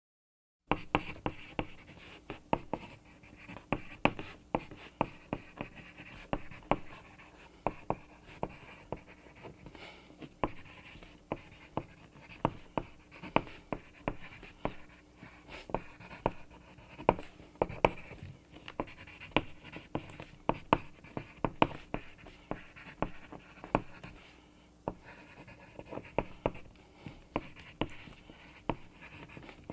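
Pencil writing on paper: a continuous scratching of graphite over the sheet, broken by frequent sharp taps and stroke starts as letters are formed.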